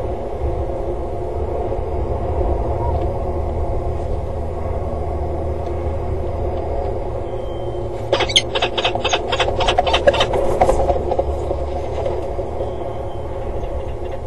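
Peregrine falcon calling in flight: a rapid run of harsh, repeated notes, about five a second, lasting about three seconds from roughly eight seconds in, over a steady low rumble.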